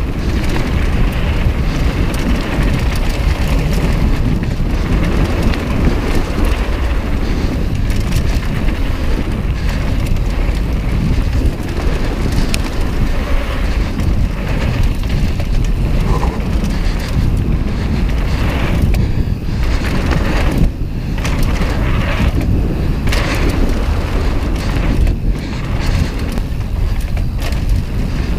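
Mountain bike descending a dirt downhill trail at speed, heard from a camera mounted on the rider: a steady rumble of tyres on dirt and wind on the microphone, broken by frequent knocks and rattles as the bike goes over bumps.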